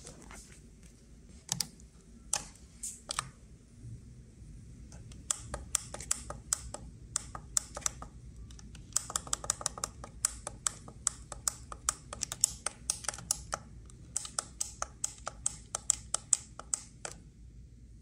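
Buttons on an aging Trane wall-mounted air-conditioner controller clicking as they are pressed: a few single presses at first, then rapid runs of clicks, several a second, from about five seconds in until near the end, over a low steady hum.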